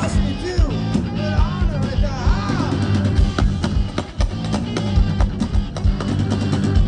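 Live rock band playing loudly: electric guitars over a drum kit with a steady, regular kick-drum beat and sustained bass notes, with a voice gliding up and down in the first couple of seconds.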